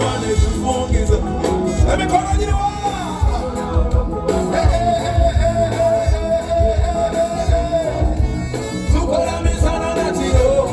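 Band music with a lead singer over a steady drum beat. About four seconds in, the singer holds one long note for several seconds before the melody moves on.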